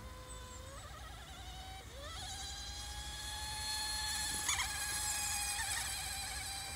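High, thin whine of a small radio-controlled model speed boat's motor running flat out. It steps up in pitch twice in the first two seconds, then holds steady and grows louder as the boat passes, easing off near the end.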